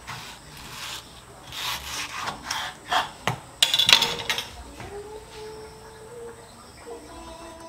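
Kitchen knife slicing the cheeks off a ripe mango, the blade rasping through the flesh and scraping the wooden cutting board in a run of strokes, loudest about four seconds in. A low, steady cooing tone follows in the second half.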